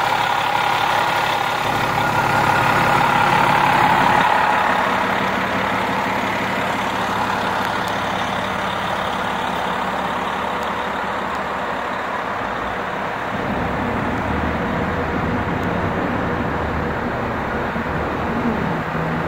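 Transit bus engine running close by, a steady drone, with a deeper engine note coming in about two-thirds of the way through.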